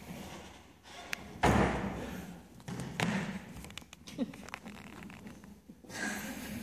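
Wooden window-seat lid on a stage set slamming shut with a loud thump about a second and a half in, followed by a few lighter knocks and thuds.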